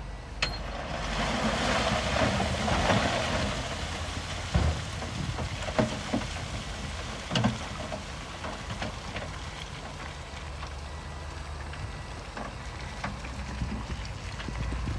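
Diesel engine of heavy earthmoving equipment running steadily, with a rushing noise that swells in the first few seconds and a few sharp knocks around the middle.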